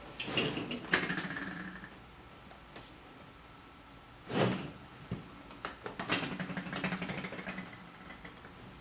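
Hands rubbing and pressing a wet fish skin onto a riqq's frame, shaking the frame so its brass jingles rattle and ring in two stretches, with one knock about four and a half seconds in.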